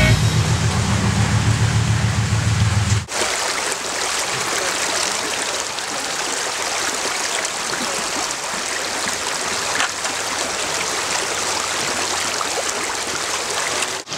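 Music cuts off suddenly about three seconds in, followed by the steady rush of a creek's flowing water.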